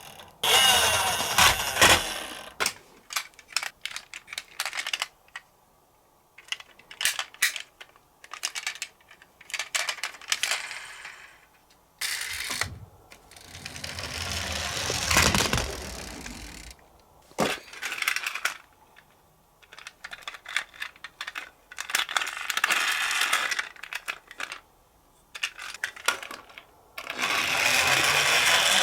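Toy police minicar clattering down a slope: bursts of rolling and rattling with sharp clicks and clinks, broken by short quiet gaps. Near the end its siren starts up with a steady, wavering tone.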